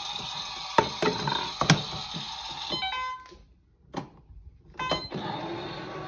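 Toy washing machine running, its drum turning with plastic balls knocking inside, with a few sharp clicks in the first two seconds. The running sound cuts out for about a second and a half just past the middle and then starts again.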